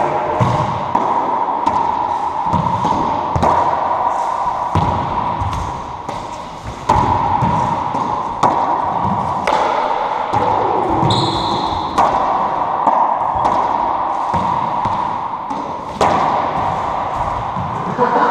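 Racquetball rally in an enclosed court: repeated sharp smacks of the ball off racquets and walls, echoing in the court, over a steady hum. A short high squeal about two-thirds of the way through.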